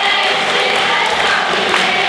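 A large group singing together to guitar accompaniment, with hand clapping along.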